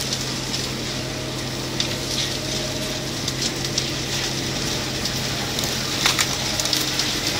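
Caterpillar M313C wheeled excavator's engine running steadily while its Woodcracker splitting head works the logs, with wood cracking and splintering in scattered snaps and a louder burst of cracks about six seconds in.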